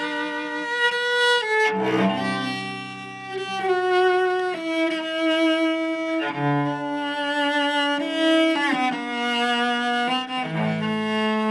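Solo cello played with the bow: a slow melody of long held notes, with short slides in pitch between some of them.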